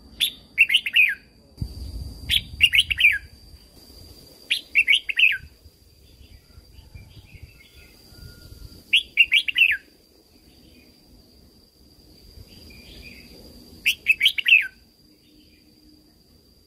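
Red-whiskered bulbul singing: five short, bright warbled phrases of quick up-and-down notes, spaced a few seconds apart with a longer gap in the middle.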